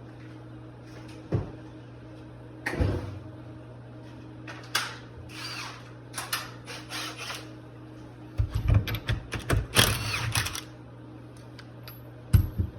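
Hand tools and small metal parts of a Rochester 2GC two-barrel carburetor clicking and clattering as it is taken apart on a bench. Scattered knocks give way to a busy run of clatter a little past halfway and two sharp knocks near the end, over a steady low hum.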